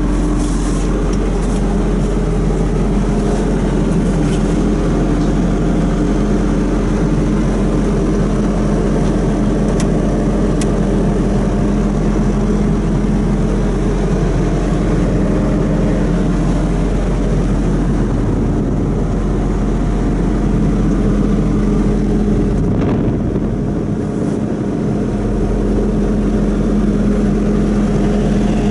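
Bobcat T770 skid steer's diesel engine running steadily, with a brief drop in level a little over twenty seconds in.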